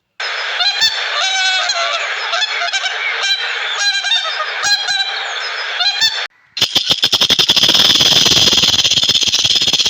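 Geese honking, with repeated harsh calls over a background of flock noise. About six seconds in the sound cuts to a denser, noisier clamour of very rapid pulses.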